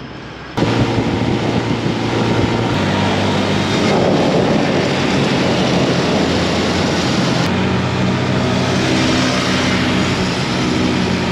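Motorcycle engine running at steady road speed, with wind rushing over the microphone. It starts abruptly about half a second in, and its tone jumps suddenly twice more.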